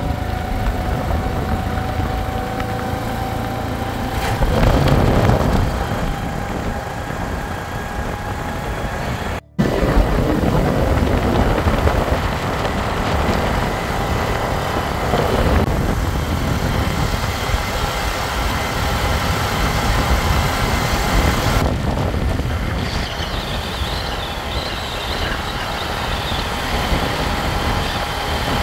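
Steady running noise of a moving CNG auto-rickshaw heard from inside its open cabin: engine drone mixed with wind and road noise. The sound drops out for an instant about nine and a half seconds in.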